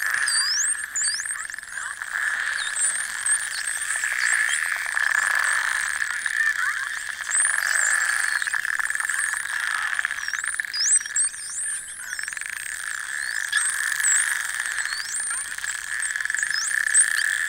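Dolphins whistling underwater, many short rising and falling whistles overlapping, with rapid buzzing click trains, over a steady high hum.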